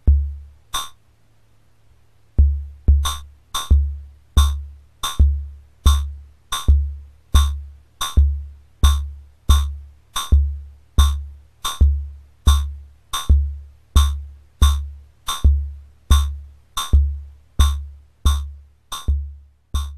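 Homemade CMOS logic-chip drum synthesizer on a breadboard playing a looping rhythm sequenced by an 8-stage shift register: a low decaying thump about every three-quarters of a second, with sharp high clicks on most beats and a few doubled. After a single thump and click there is a pause, and the steady pattern starts about two seconds in.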